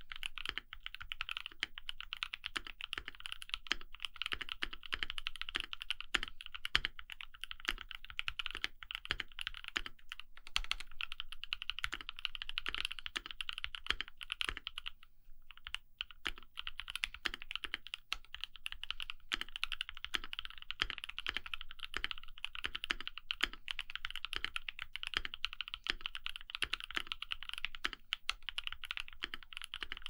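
Continuous typing on a KBDFans D65 mechanical keyboard with a polycarbonate case and plate, Creampaca linear switches and Durock v2 stabilizers: a rapid stream of keystrokes, broken by a short pause about fifteen seconds in.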